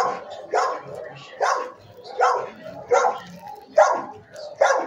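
A dog barking repeatedly, a steady run of about seven sharp barks, one every three-quarters of a second or so.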